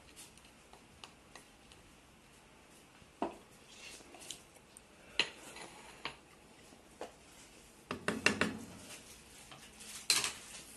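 Wooden spoon and plate knocking and clattering against a metal cooking pot, in scattered single knocks, a quick cluster of clatters about eight seconds in and a sharp clatter about ten seconds in.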